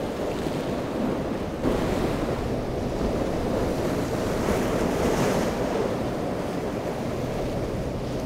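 Rough ocean surf breaking and rushing, with wind buffeting the microphone. A wave crashes louder about five seconds in.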